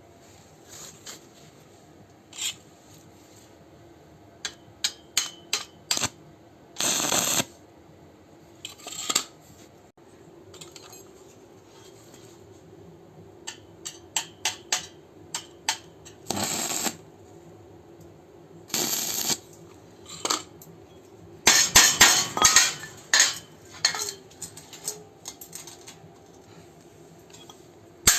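Stainless steel pieces clinking and being tapped or struck: many sharp separate metal knocks, with a quick cluster of strikes about three quarters of the way through. Three short noisy bursts, each about half a second to a second long, break in between.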